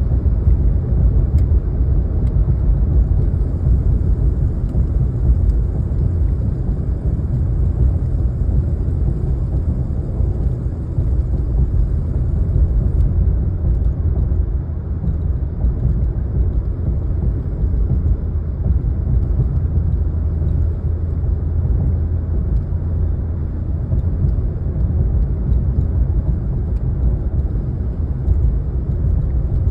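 Truck making a steady low rumble, a noise of unknown cause that the owner wants diagnosed and fixed. A faint high whine is also present for about the first third.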